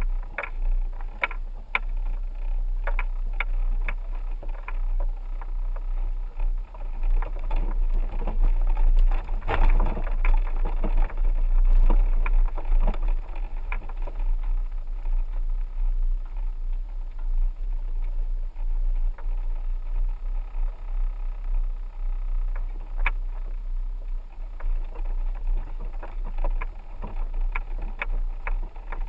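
A 4x4 driving slowly: a steady low rumble with frequent clicks and knocks, louder for a few seconds around the middle.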